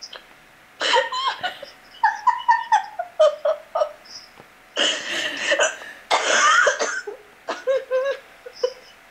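A woman laughing hard over a video call, in several groups of short bursts with brief pauses between them.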